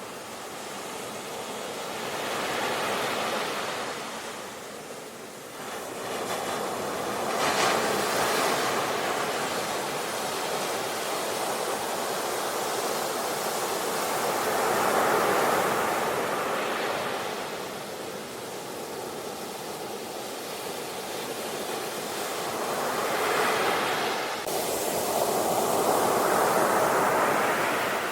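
Ocean waves breaking on the shore, surging and ebbing in swells of surf every few seconds.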